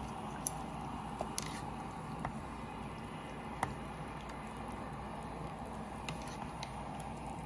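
Chopsticks stirring and pushing noodles and vegetables down into hot pot broth: soft wet squishing, with a few light clicks scattered through.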